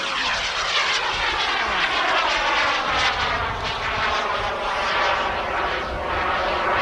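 BD-5J microjet's small turbojet whining as it flies past overhead. The whine falls steeply in pitch over the first second or two, then holds steady and high.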